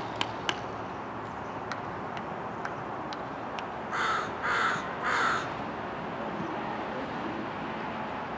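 A crow cawing three times in quick succession, about half a second apart, roughly four seconds in.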